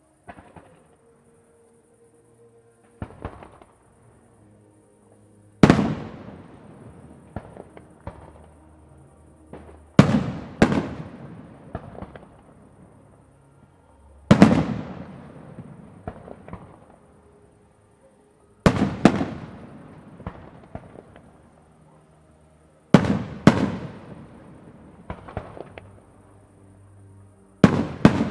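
Aerial firework shells bursting in loud bangs, about one every four to five seconds and sometimes two in quick succession. Each bang trails off in a fading rumble and crackle, with smaller pops in between.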